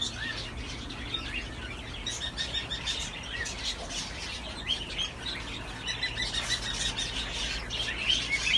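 Many small caged birds chirping at once, a dense chorus of short overlapping chirps that goes on without a break, over a low steady hum.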